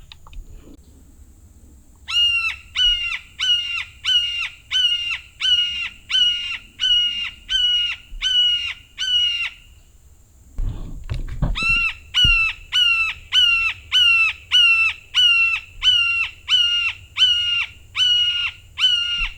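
Crow locator call blown close by, in two long runs of loud, evenly spaced caws, about two a second, with a short break between runs. It is used to shock a gobbler into gobbling.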